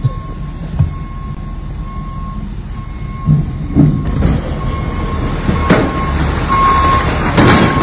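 Box truck's trailer scraping along the side of a police SUV as it pulls past, a heavy rumble with a thin steady squeal and several knocks and creaks. The louder ones come about three and a half, four, six and seven and a half seconds in.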